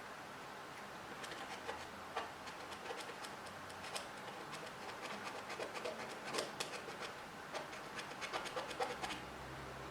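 Small brush scrubbing a clogged phone ear speaker grill wet with alcohol: fast, irregular scratching and ticking that starts about a second in, working the blocked holes clear. A low steady hum comes in near the end.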